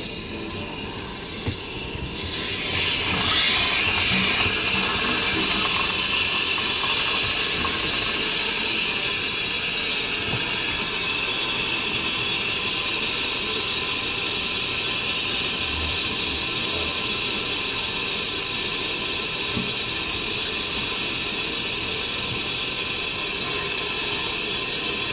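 Powered drain snake running steadily, its spinning cable fed into a kitchen sink drain line clogged with muck. The steady hiss and whir builds up over the first two or three seconds and then holds.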